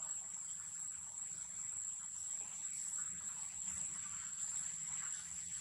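Insects in the surrounding vegetation giving a steady, high-pitched drone: one unbroken whining note.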